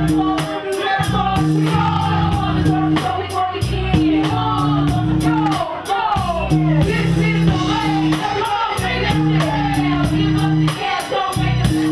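Live hip-hop performance: rapped vocals over a beat with a repeating heavy bass line and a steady hi-hat.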